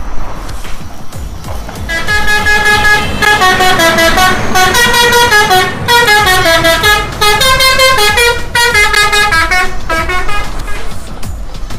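A multi-tone musical vehicle horn plays a tune of loud, bright held notes that step up and down, from about two seconds in until near the end. Underneath, a low rumble and rattle comes from plastic toy trucks rolling over grass.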